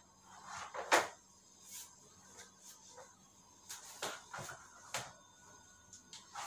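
Clicks and knocks from a Hybrid Curve stroller's seat unit as it is lifted and repositioned on its frame. About half a dozen separate knocks, the loudest about a second in.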